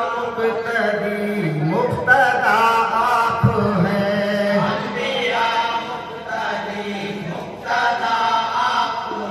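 A group of men singing a naat, an Urdu devotional poem in praise of the Prophet, together in a chanting style.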